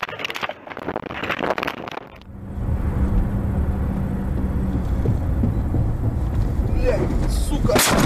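Low, steady road and engine rumble inside a car at highway speed on a snowy road. Near the end comes a loud, sudden crash as the car leaves the road and tumbles.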